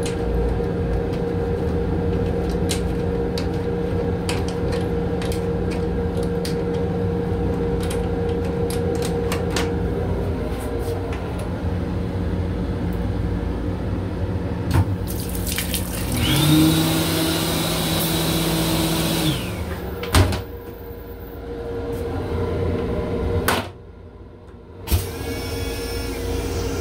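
Steady hum of the M7 railcar with scattered clicks. About two-thirds of the way through, water runs into the restroom sink for about three seconds: a rushing hiss over a hum that rises as it starts and cuts off sharply. A few clicks follow.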